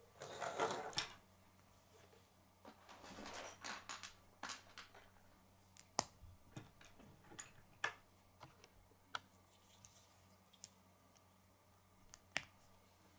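Plastic K'nex pieces being handled and fitted together: a rustle of handling in the first second and again a few seconds in, then scattered sharp clicks as connectors are pushed onto a rod.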